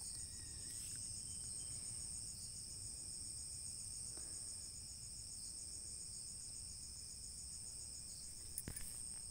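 Crickets chirping steadily in a fast, high-pitched pulsing trill, with a few faint clicks near the end.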